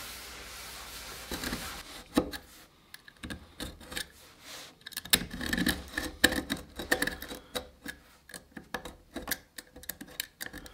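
A cloth rubbing over a wooden tabletop. Then, from about two seconds in, a utility knife blade scraping and picking along a glue-line crack in solid mahogany, digging out old reddish filler, heard as quick irregular scratches and clicks.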